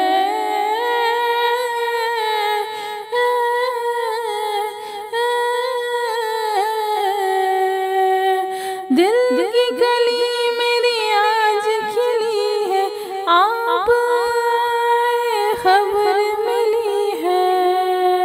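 A solo voice humming and singing an unaccompanied devotional melody (manqabat) in long, gliding, ornamented phrases with no clear words.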